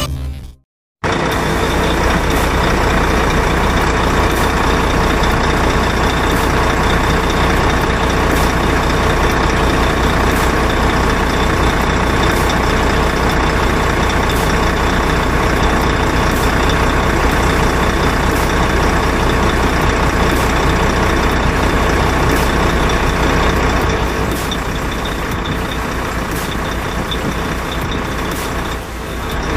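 A heavy truck's diesel engine running steadily with a deep low hum. It comes in about a second in, after a brief silence.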